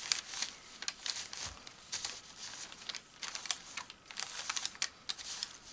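Crinkling rustle of Angelina fibres being patted and spread flat by hand on a sheet, in a run of short, irregular rustles.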